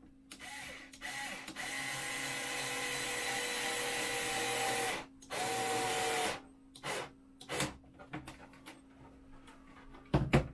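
Small electric motor whirring with a steady whine for about five seconds, stopping briefly, then running again for about a second. A few short knocks and clicks follow, with a sharper knock near the end.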